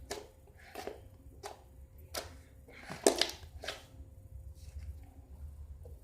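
Slime being squeezed and stretched in the hands for ASMR: a series of short squishes and pops, about one every two-thirds of a second, fading near the end.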